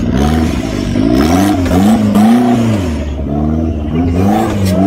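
An off-road 4x4's engine revving up and down in quick repeated surges, about two a second, over a steady low rumble, as the throttle is worked over an obstacle.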